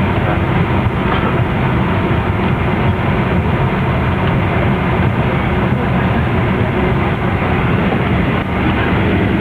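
Steady low rumble and hiss of an airliner cabin on the ground at the gate, with no distinct events.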